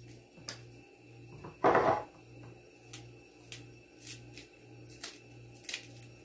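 Light clinks and taps of a spoon and dishes while a cabbage salad is seasoned, with one short, louder noise a little under two seconds in.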